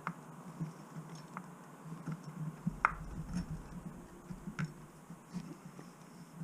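Scattered light clicks and taps of small rubber and plastic parts being handled as a 1/14-scale RC truck tyre is worked off its rim, over a low steady hum; the sharpest clicks come about three seconds in and again a little later.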